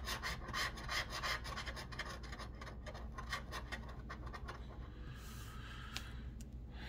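A small metal scratching tool scraping the coating off a paper lottery scratch ticket in quick repeated strokes. The scraping eases off about four seconds in, and a few light clicks follow near the end.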